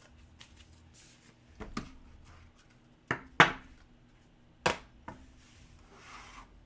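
A few sharp knocks and taps of cards and boxes being handled and set down on a table, the loudest about three and a half seconds in, with a soft rustle near the end.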